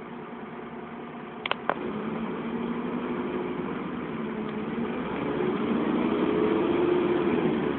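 Dennis Trident double-decker bus engine heard from the upper deck, running at a steady low hum, then rising in pitch and loudness as the bus pulls away about five seconds in, easing near the end. Two sharp clicks sound close together about a second and a half in.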